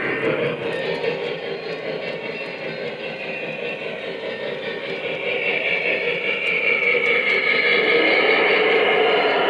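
O-gauge model train running on the layout's track, a steady rolling, mechanical rumble with a faint whine that grows louder from about six seconds in as it draws nearer.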